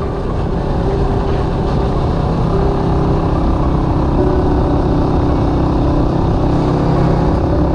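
Motorcycle engine running steadily while being ridden, with road and wind noise.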